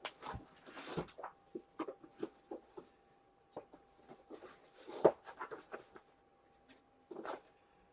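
Trading card packs and cards being handled on a desk: irregular rustling, light taps and clicks, with a sharper knock about five seconds in.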